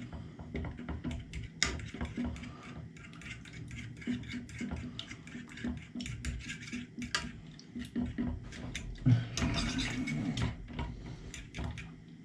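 A metal fork beating raw eggs in a frying pan, clicking and scraping against the pan in quick, irregular strokes, with a louder, busier stretch about nine seconds in.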